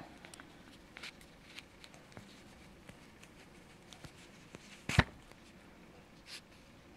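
Faint rustling and small ticks of fingers handling a yarn needle and satin ribbon as they are drawn through a felted wool ball, with one sharp click about five seconds in.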